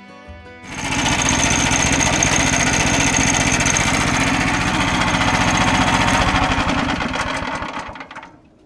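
Sawmill's small gasoline engine running hard, with a fast even throb and a high whine above it. It starts abruptly about a second in and fades out near the end.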